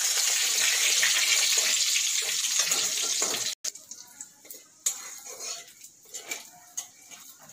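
Cumin seeds and a bay leaf sizzling loudly in hot oil in a kadai, a steady frying hiss that cuts off suddenly about three and a half seconds in. After that a metal spatula scrapes and taps against the pan over a quieter sizzle.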